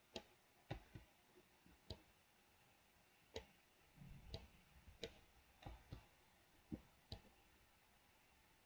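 Computer mouse clicking: about a dozen faint, irregularly spaced clicks that stop shortly before the end.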